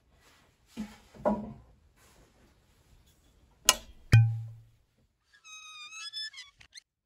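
A couple of soft footsteps, then two sharp clicks from a desk lamp being switched on and adjusted, the second with a short low thud. These are followed by a stepping, squeaky creak from a leather chair being sat in.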